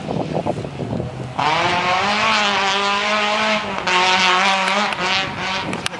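Rally car engine running hard at high revs, much louder from about a second and a half in, its note bending up and down with a brief break near the middle.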